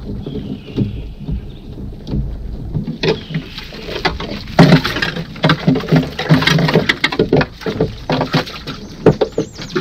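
Wire crawfish trap lifted and shaken out, with a dense clatter of many sharp clicks and knocks starting about three seconds in as crawfish rattle against the wire mesh and tumble out.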